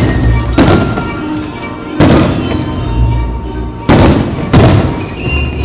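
Aerial fireworks shells bursting with loud booms, four in quick succession, each trailing off slowly, over music playing throughout.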